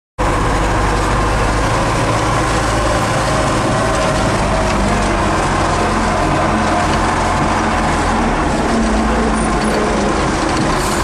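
Caterpillar wheel loader's diesel engine running steadily, heard from inside the operator's cab.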